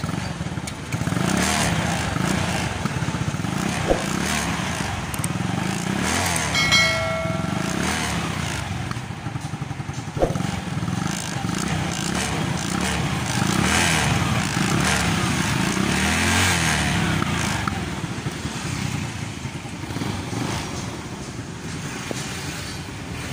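Yamaha Mio Sporty scooter's single-cylinder four-stroke engine running during a test, a little noisy but judged still okay; its valves have too much clearance. A brief tone sounds about seven seconds in.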